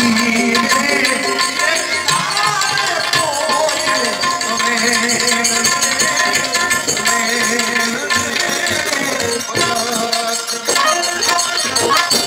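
Indian folk-style singing with tabla accompaniment and steady held notes underneath.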